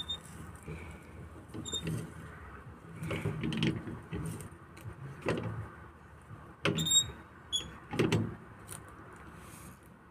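A shovel digging into loose soil and tipping it into a wheelbarrow: a series of separate scrapes and thuds, some with a brief ring.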